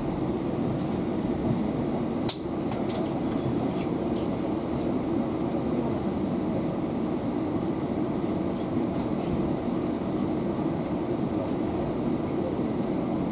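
Steady rumble of a passenger train car heard from inside as the train rolls into the station on arrival, with a few short high clinks in the first few seconds.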